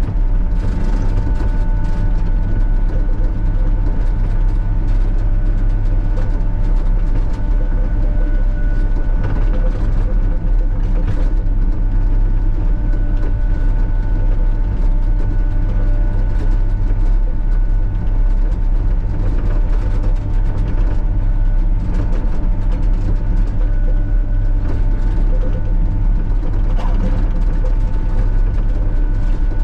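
Sany SY35U mini excavator's diesel engine running steadily under working load, with a steady high whine over the low drone and scattered clicks.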